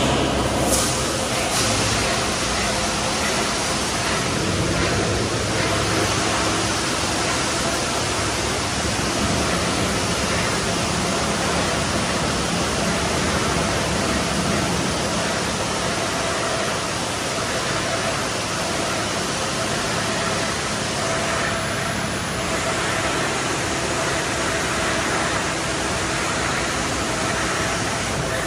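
High-pressure water jets of a Mark VII AquaJet car wash spraying a car, making a loud, steady hiss of rushing water with a faint steady hum underneath.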